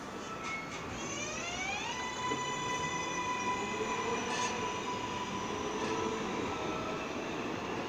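A modern New York City subway J train pulling out. Its electric propulsion whine rises in pitch from about one second in to two seconds in, then holds a steady high tone over the noise of the wheels on the rails.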